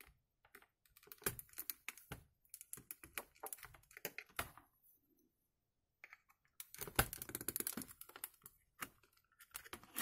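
Clicking and light clatter of a Logitech K220 wireless keyboard's plastic keys and case, as a flathead screwdriver pries at its snap-fit clips and a hand presses on the keys. The clicks come in scattered runs, with a pause about five seconds in and a denser run a couple of seconds later.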